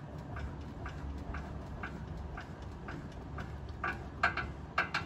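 Hand crank turning a pop-up camper's metal corner stabilizer jack, a small click about twice a second with each turn, with a few louder metal clacks near the end.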